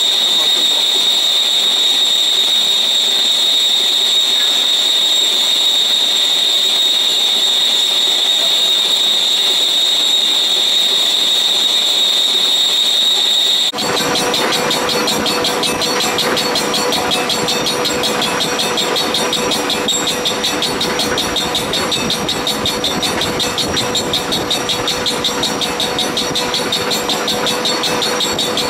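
Vertical lathe turning a slurry pump impeller with a CBN insert: a loud, steady, high-pitched cutting whine. About halfway through the sound changes abruptly to a lower steady tone with a fast pulsing chatter.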